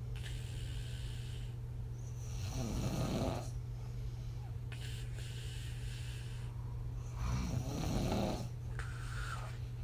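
A woman snoring on her back, puffing air out through slack lips. Two louder snoring breaths come about five seconds apart, with softer airy breaths between them, over a steady low hum.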